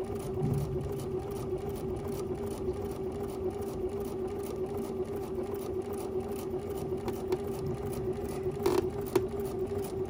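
Domestic sewing machine running steadily as it stitches through a thick folded strap under a Teflon foot: a constant motor hum with rapid, even ticking of the needle strokes. A couple of sharper clicks come near the end.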